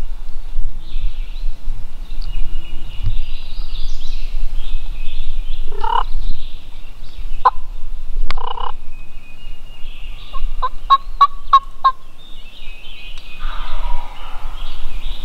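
Wild turkey gobbling: short calls about six and eight seconds in, then a quick series of about seven notes near the eleven-second mark. Small songbirds chirp throughout.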